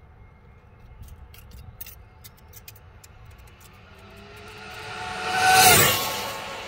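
A brushless electric RC speed-run car (1100 kV motor on 6S) passes at top speed. Its high motor-and-gear whine builds as it approaches and peaks loudly near the end. The pitch drops as it shoots past.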